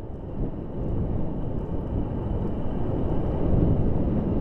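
Wind buffeting the microphone of a motorbike rider's camera while riding, a low rumble that grows louder about a second in.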